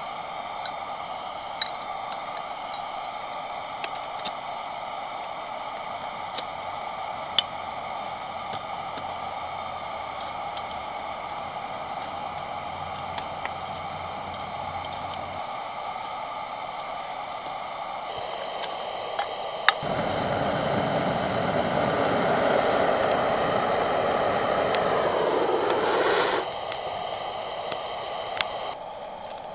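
Metal rods of a folding fire-pit stand being fitted together, with a few sharp clicks over a steady background hiss. About twenty seconds in a louder rushing hiss starts and cuts off suddenly some six seconds later, as the firewood is lit.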